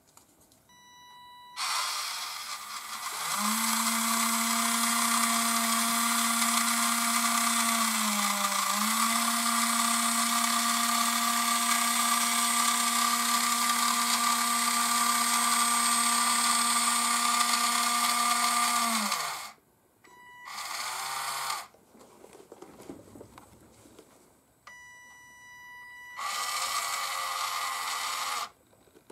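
Small electric lift motor and gearing of a converted AMEWI RC forklift, moving the forks with a model boat hull on them. It runs with a steady whine for about seventeen seconds, the pitch sagging briefly about eight seconds in, then makes two shorter runs near the end.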